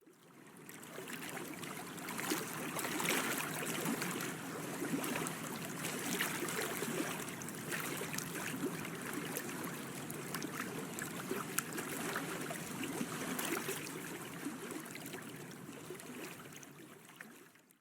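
Water trickling and lapping with many small splashes, fading in at the start and out near the end.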